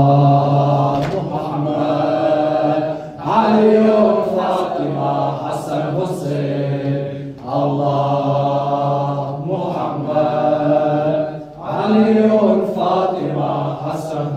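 A man's voice chanting a latmiya, the Shia lamentation chant, into a microphone in long melodic phrases of about three to four seconds, each separated by a short breath. Sharp slaps of hands striking chests (latm) come in now and then between and under the lines.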